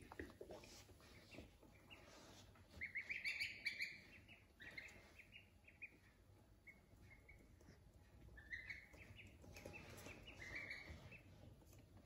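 Ducklings peeping: short runs of high chirps in scattered bursts, the loudest a few seconds in.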